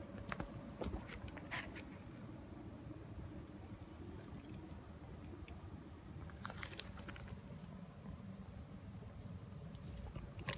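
Night insects calling, with a steady high-pitched trill and a second, higher chirring that pulses on and off every second or two. Low rustling and a few sharp clicks run underneath.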